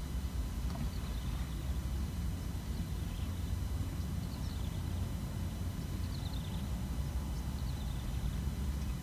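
Outdoor lakeside ambience: a steady low rumble of wind buffeting the microphone, with faint short high chirps that fall in pitch and repeat every second or two.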